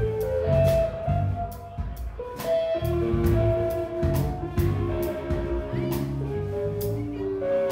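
Live band playing: guitars over bass and drums, a melody of held notes with regular cymbal strokes.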